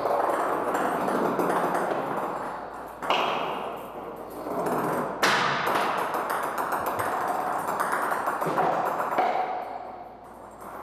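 A ball being batted and rolled across the enclosure floor by a young puma, with sharp knocks about three and five seconds in.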